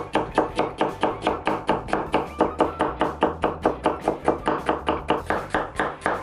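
Chef's knife chopping a raw potato into thin matchstick strips on a wooden cutting board. The blade strikes the board in a fast, steady rhythm of about five strikes a second.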